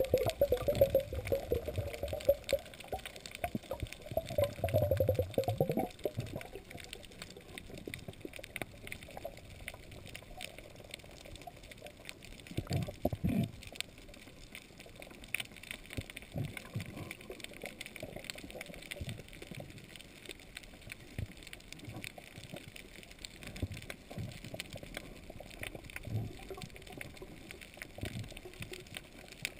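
Underwater sound picked up by a camera housing on a free dive: water sloshing and gurgling, louder for the first six seconds, then a quieter hush with scattered faint clicks and a few short low bubbling bursts.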